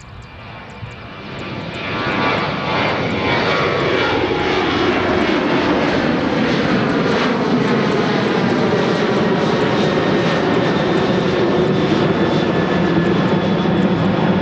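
Jet engine noise from a Boeing 737-800 climbing out after takeoff, its twin CFM56-7B turbofans at climb power. The sound swells over the first two seconds as the jet comes close, then holds loud and steady, with tones sliding down in pitch as it passes.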